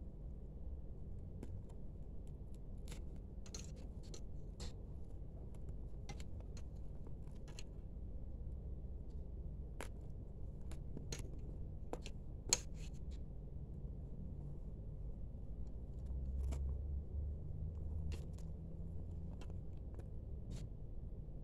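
Small cloth hand flags on thin plastic sticks being handled and pulled apart: scattered light clicks and rustles as the sticks knock together and the cloth shifts, with one sharper click about twelve seconds in, over a steady low hum.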